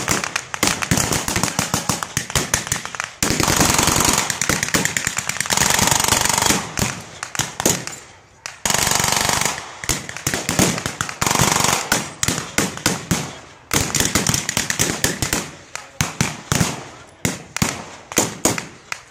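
Blank-firing rifles and machine guns in a WWII reenactment firefight: many sharp shots in rapid, irregular volleys, merging into long stretches of continuous fire about three to six seconds in and again from about nine to eleven seconds.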